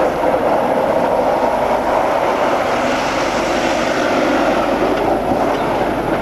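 Tatra 815 Dakar rally truck's diesel engine running hard under load as the truck drives over rough quarry ground, a loud steady drone.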